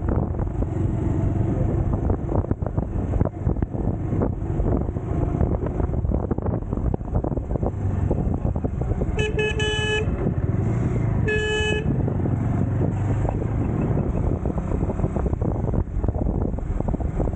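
Motorcycle engine running steadily under way, with wind and road noise. A horn beeps twice about nine and eleven and a half seconds in: a longer beep, then a short one.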